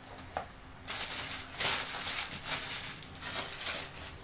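Gift wrapping paper being torn and crumpled by hand in irregular, crackly bursts.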